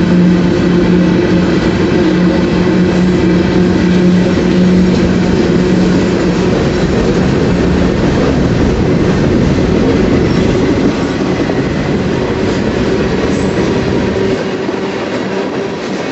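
Freight cars of a very slow-moving train rolling past on the track, wheels on rails. A steady low hum runs under it in the first half and fades later, and the sound drops slightly about eleven seconds in.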